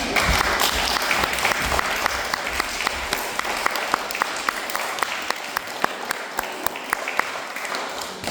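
Audience of young schoolchildren applauding, a dense burst of clapping at first that thins out into scattered individual claps and fades in the second half.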